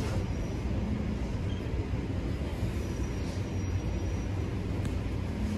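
Steady low rumble and hum inside a Toronto Rocket subway car on TTC Line 1, with no sharp events.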